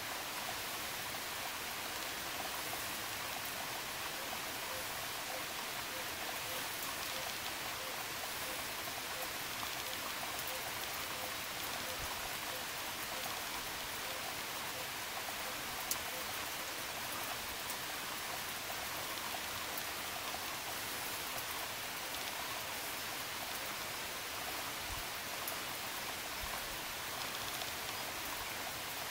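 Light rain falling steadily as an even patter, with one small click about sixteen seconds in.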